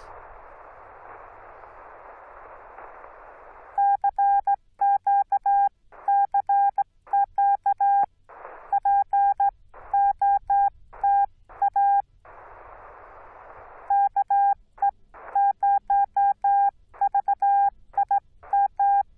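Morse code (CW) from a Yaesu FT-891 ham transceiver: a single steady beeping tone keyed in dots and dashes, most likely the sidetone of the operator's own sending on the 15 m band. The receiver's band hiss plays for about four seconds before the keying starts and returns twice briefly between groups of characters, dropping out whenever the tone sounds.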